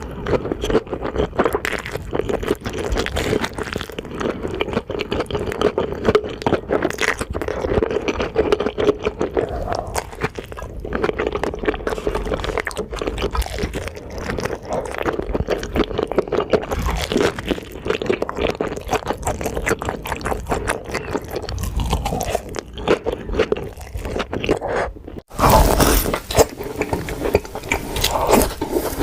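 Close-miked eating of fast food: steady crunching, smacking and chewing. About 25 seconds in there is an abrupt cut to a brighter, louder stretch of chewing.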